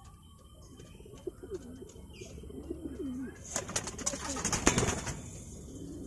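Domestic pigeons cooing, low rising-and-falling coos over the first three seconds. About three and a half seconds in, a louder flurry of rustling and clattering lasts for over a second.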